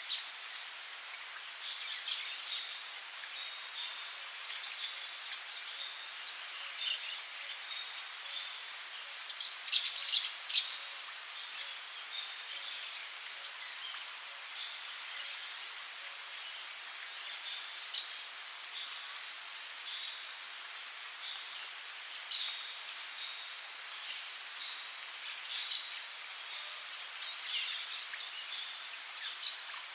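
Forest ambience: a steady high-pitched drone of insects, with short bird chirps scattered through it, a few in a quick cluster about ten seconds in.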